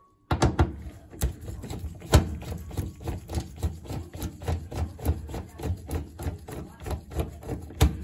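Nut driver turning out the mounting screw of a furnace pressure switch: an irregular run of sharp metallic clicks and knocks against the sheet-metal furnace panel, about three or four a second, starting just after the beginning.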